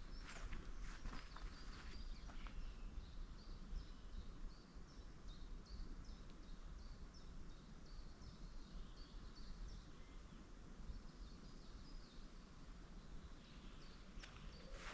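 Footsteps on a forest trail for the first couple of seconds, then a bird repeating a short high call note about twice a second for several seconds, over a low steady rumble. Steps resume near the end.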